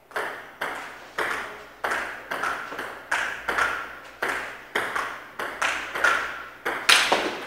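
Table tennis rally: the ball clicking off paddles and the table in a steady back-and-forth, two to three hits a second, each hit ringing briefly in the hall.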